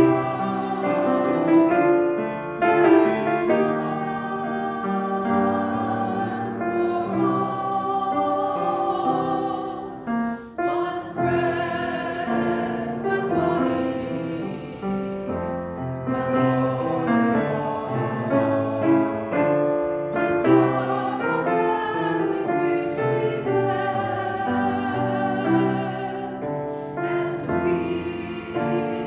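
A hymn sung by voices with piano accompaniment, with a brief break about ten seconds in.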